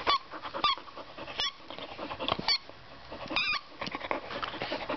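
Black Labrador retriever chewing a squeaky goose toy, squeezing out short, high squeaks at uneven intervals, with soft chewing clicks between them.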